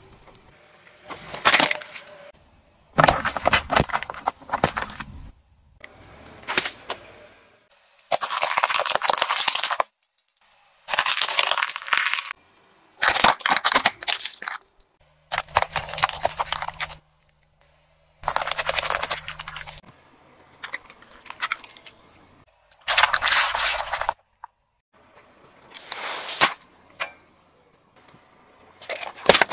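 Car tyre rolling over and crushing small plastic items, heard as a series of separate cracking, crunching bursts about one to two seconds long with short gaps between.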